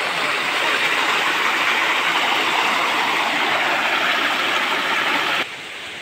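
Water rushing steadily over rocks in a shallow stream, a constant hiss that cuts off abruptly near the end.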